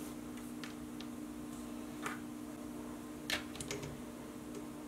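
Paracord being handled and threaded on a plastic collar jig: a few soft, scattered clicks and rustles of cord sliding and being pulled, the loudest a little past three seconds in, over a steady low hum.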